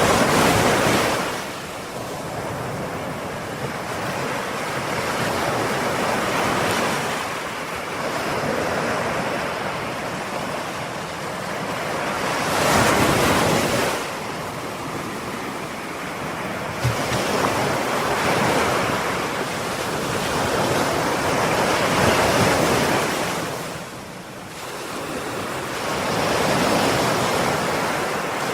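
Ocean waves breaking and washing on a shore in repeated surges, swelling and ebbing every few seconds.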